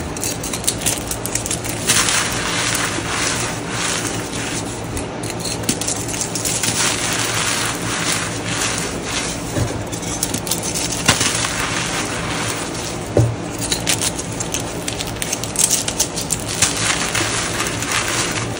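Hands crushing and crumbling a block of reformed glitter gym chalk: a continuous powdery crunching with many small crisp crackles.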